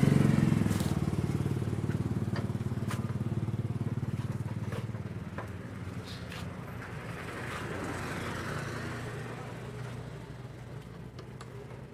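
Honda Astrea Legenda 2 motorcycle's single-cylinder four-stroke engine running. It grows steadily fainter, with a brief swell about eight seconds in and a few sharp clicks along the way.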